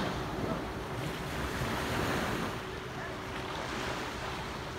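Wind and sea surf washing on a beach, rising and falling, with a swell about two seconds in and wind buffeting the phone microphone. A faint steady hum runs underneath.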